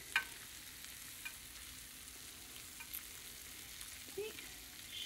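Faint, steady sizzling of hot fat and juices around meatballs fresh from the oven in a glass baking dish, with a few light clicks.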